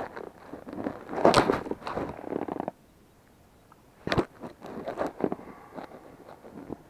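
Irregular close rustling and clicking as clothing and fishing tackle are handled near the microphone. There is a loud cluster about a second in. After a brief lull, a sharp click comes about four seconds in, followed by more scattered rustles.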